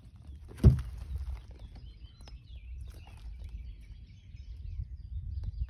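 Small birds chirping in the background, many short high calls, over a steady low rumble; a single loud thump a little over half a second in.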